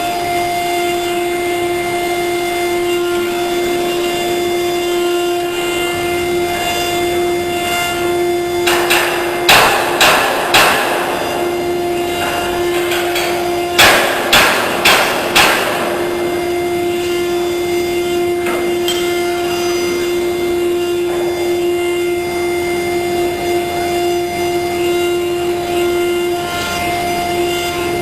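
A 6090 CNC router's spindle running with a steady high whine, broken twice by a quick run of three or four short, loud, rasping bursts.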